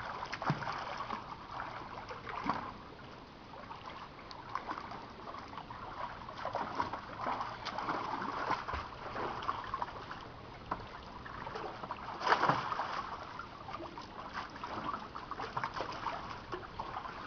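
Pool water splashing and sloshing as a small dog paddles and a child wades through it: a steady run of small splashes, with a louder splash about twelve seconds in.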